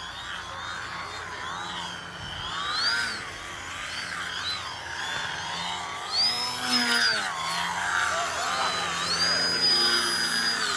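DW Foamies Juka 40" electric foam aerobatic RC plane in flight. Its brushless motor and propeller whine, the pitch rising and falling with the throttle. The whine holds high and steady twice, around the middle and again near the end.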